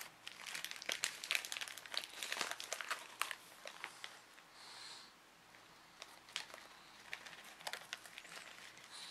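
Packaging crinkling and rustling as a package is opened and handled, with dense crackles for the first few seconds that thin out after that.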